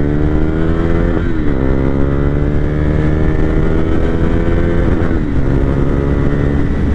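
KTM Duke 390's single-cylinder engine pulling hard under acceleration, its pitch climbing steadily. It shifts up twice, about a second in and again about five seconds in, the pitch dropping at each change and climbing again.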